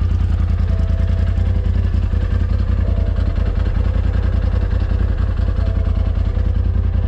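Polaris RZR Pro XP side-by-side's engine running steadily with an even, fast low-pitched pulse.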